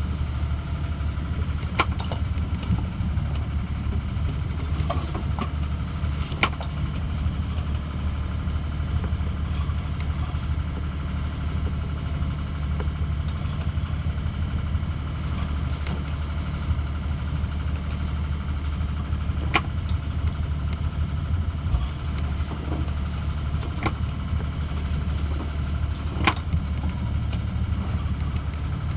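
Wind and rough sea rushing around a small sailing yacht over a steady low drone, with a few sharp knocks scattered through.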